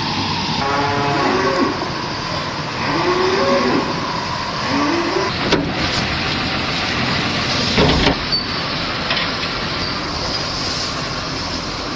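Dairy cows mooing: three short calls in the first six seconds, over a steady background noise, with a few sharp knocks after that.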